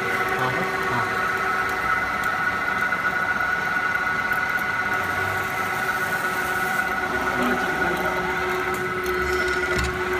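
Multi-point riveting machine running with a steady whine of several pitches.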